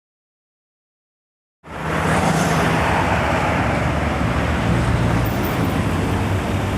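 Silence, then, a little under two seconds in, steady motor-vehicle noise cuts in abruptly: a low engine rumble under a broad road hiss.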